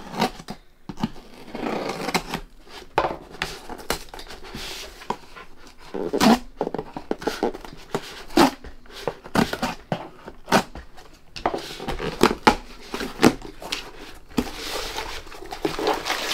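Small hobby knife cutting the packing tape along a cardboard shipping box's seam. Irregular scraping, slicing strokes and sharp clicks, with cardboard rubbing as the flaps are worked open.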